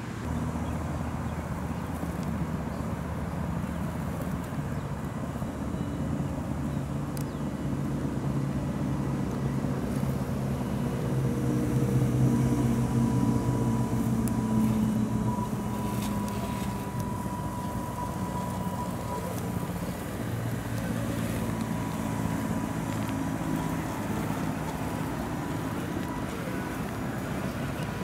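Electric motor and geartrain of a 1:10 scale RC4WD Gelande 2 Defender 90 crawler whining as it crawls over loose dirt and gravel. The pitch rises and falls with the throttle, and it is loudest around the middle.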